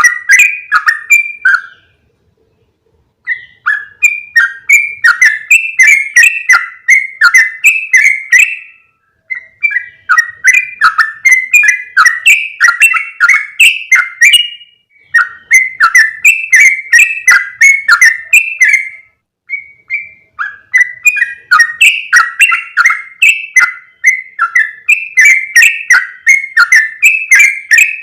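Yellow-vented bulbul (trucukan) song played as a lure call: loud bouts of quick, bubbly warbling notes, each bout lasting several seconds, broken by brief pauses.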